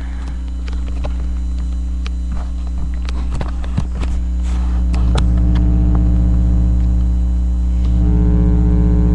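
Loud steady electrical mains hum in a webcam microphone, with scattered clicks and knocks from the webcam being handled and turned, mostly in the first few seconds.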